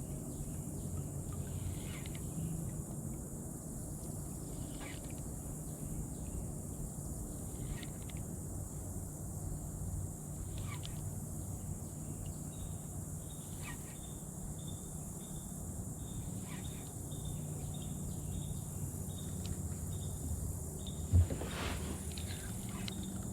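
Quiet outdoor river ambience. Faint animal chirps repeat evenly over a steady high hiss and a low rumble, and there is one short, louder knock or splash about 21 seconds in.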